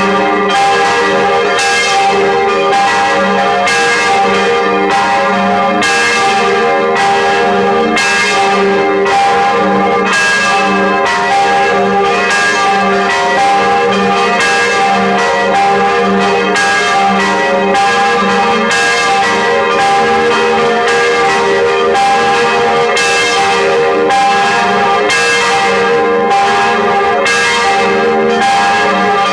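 Swinging church bells ringing in a full peal, loud and continuous. The strikes come roughly every second or less and overlap, each one ringing on under the next.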